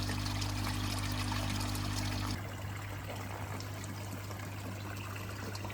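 Water trickling and splashing steadily into a koi pond. A low steady hum under it stops abruptly a little over two seconds in, and the water sound becomes slightly quieter.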